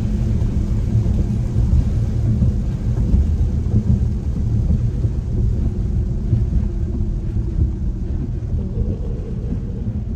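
Steady low rumble of a car in motion on wet roads in the rain, heard from inside the cabin: tyre and road noise with the engine underneath.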